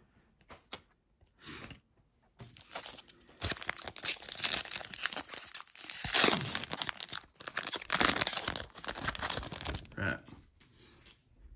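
A trading card pack's wrapper being torn open and crinkled by hand. It starts about two seconds in after a few small clicks and runs as continuous crackling, loudest in the middle.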